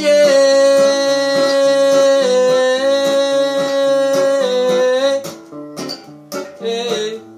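A man sings one long held note over a strummed acoustic guitar, the note dropping slightly in pitch twice. The note ends about five seconds in, and the guitar strumming carries on alone, quieter.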